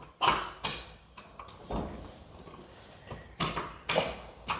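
A few scattered knocks and light clatters with rustling in between: hardware being handled and shifted into position while a garage door opener is lined up for mounting.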